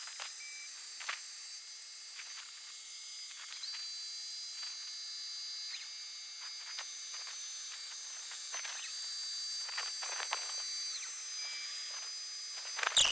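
Shapeoko CNC router running a round-over cut, heard as a high hiss with a thin whine that steps up in pitch and back down twice, and scattered faint clicks.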